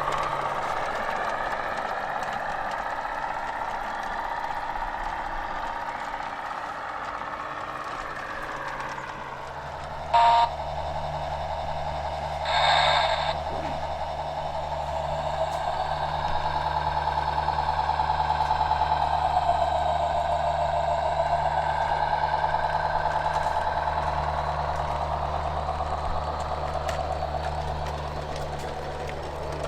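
Sound car on a battery-powered 16mm-scale garden railway locomotive playing a recorded locomotive engine sound that rises and falls in pitch. It gives two short horn blasts, about ten and thirteen seconds in, and a low steady hum sets in just before the first.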